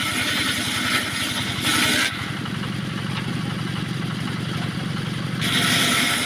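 Engine-driven homemade circular sawmill running steadily. A harsh, higher cutting noise rides on the engine for the first two seconds and comes back about five seconds in as the blade cuts through teak, with the engine running alone in between.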